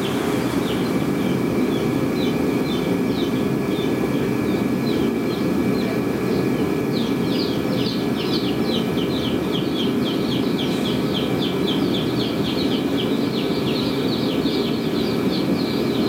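A fan switches on right at the start and runs steadily with a low rushing noise and a faint hum. Over it the chicks' peeping is sparse at first, then builds from about seven seconds in to a dense chorus of rapid high cheeps.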